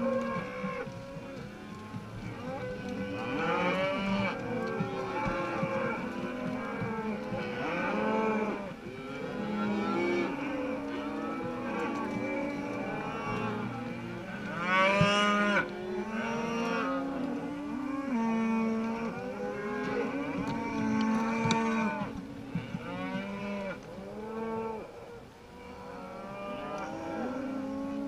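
A herd of beef cows and calves mooing and bawling, many calls overlapping one another without a break, with the loudest call about halfway through.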